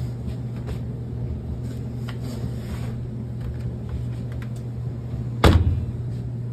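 Steady low hum, then about five and a half seconds in a single loud thump as the glass lid of a top-load washer, a Cabrio Platinum, is shut.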